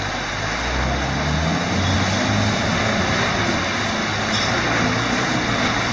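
Land Rover Defender engine pulling the truck through a shallow river ford and up the bank, its pitch rising about a second or two in as it takes the climb, over a steady hiss of rushing water.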